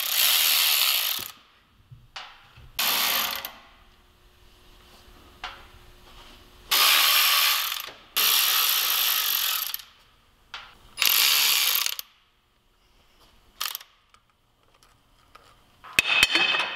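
Cordless electric ratchet spinning out the bolts of an axle differential cover, in about five short runs of a second or so each with pauses between. Near the end, a few sharp knocks as a hammer taps the cover loose.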